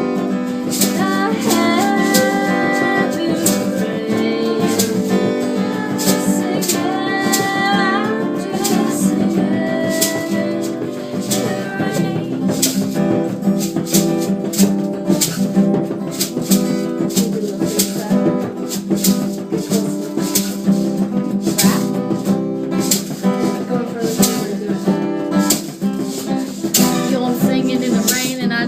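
Band music without words: guitar playing, with a steady rhythm of quick shaken-percussion strokes; a melodic line carries over it during the first half.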